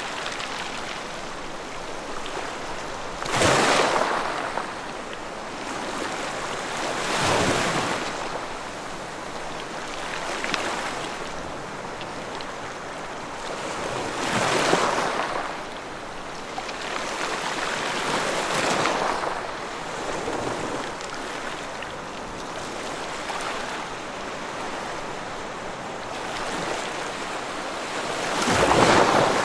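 Ocean surf breaking and washing in, one surge every few seconds over a steady hiss of water. The loudest surges come about three seconds in and near the end.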